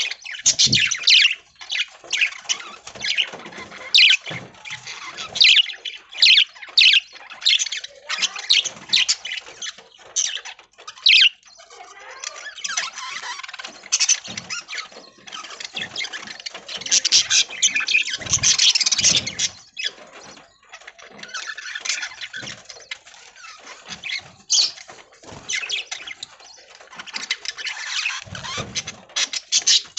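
A flock of budgerigars chattering and squawking: a dense, continuous stream of short, sharp, high calls, busiest a little past the middle.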